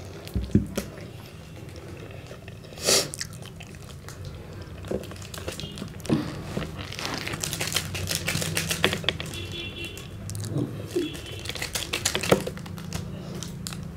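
Plastic chocolate-bar wrapper crinkling and tearing as it is bitten and pulled open with the teeth, mostly in the second half, over background music.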